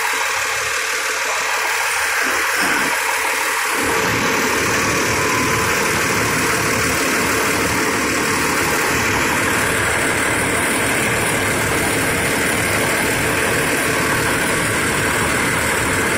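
A fire engine's diesel engine idling as a steady noise; its low rumble becomes much stronger about four seconds in.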